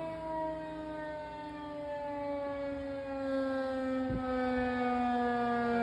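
Federal Signal 2001 rotating electromechanical tornado siren sounding one steady tone whose pitch falls slowly and evenly throughout: the siren winding down as its rotor slows.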